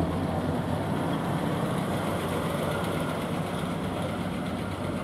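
Bedford OWB single-deck bus's six-cylinder petrol engine running steadily at low speed as the bus pulls slowly past.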